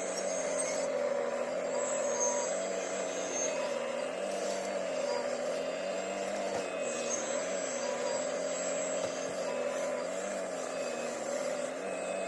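Diesel engine of heavy earthmoving machinery running steadily, its pitch rising and dipping slightly with the load.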